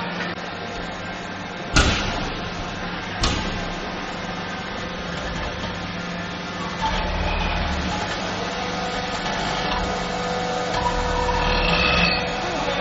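Factory machinery running with a steady hum, broken by two sharp knocks about a second and a half apart near the start and by stretches of deeper rumble later on.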